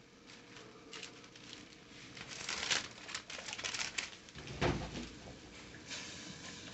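Spatula stirring and scraping chopped onion, tomato and peppers around a speckled enamel frying pan, mostly in the middle few seconds, with one dull knock against the pan a little past halfway.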